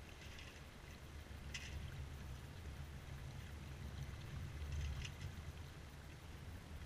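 Sailboat under sail: a steady low wind rumble on the microphone and water washing past the hull, with a few short ticks or splashes.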